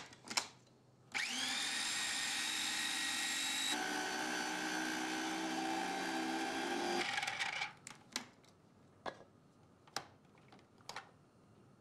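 Electric food processor motor spinning up and running for about six seconds, chopping parsley, garlic and lemon zest for gremolata; its pitch changes partway through, then it stops. A few light knocks follow.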